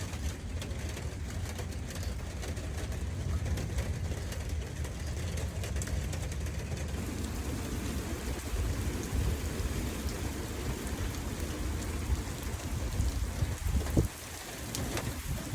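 Heavy thunderstorm rain pouring steadily, with a deep low rumble underneath and a few sharp knocks near the end.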